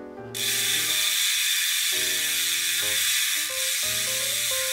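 Bontrager Rapid Drive freehub with 108 points of engagement on a Line Comp 30 rear wheel, buzzing as the wheel spins freely: a fast ratcheting buzz heard as a steady high hiss that starts abruptly a moment in. Background music plays underneath.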